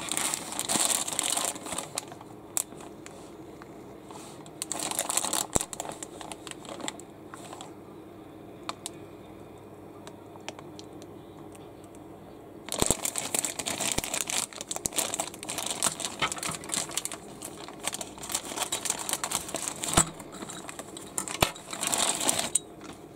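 Thin clear plastic bag crinkling in bursts as the wooden toy locomotive sealed inside it is handled. A long run of crinkling starts about halfway through and lasts until near the end, with a few sharp clicks.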